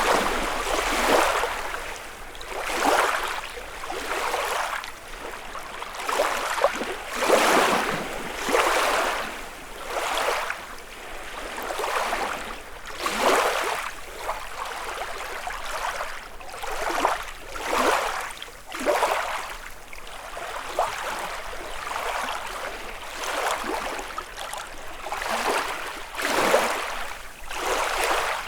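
Small lake waves lapping and splashing against the shore, one wash every one to two seconds, some louder than others.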